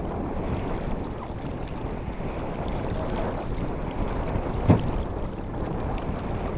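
Steady wind noise on the microphone over water rushing along the hull of a heeled sailboat under sail, with a single sharp knock about two-thirds of the way through.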